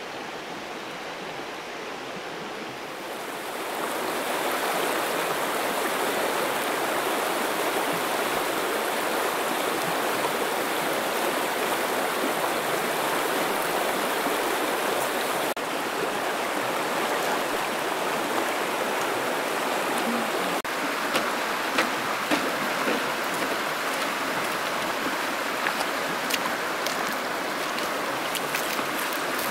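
Steady rush of flowing water that grows louder about three and a half seconds in, with scattered small splashes and ticks in the later part.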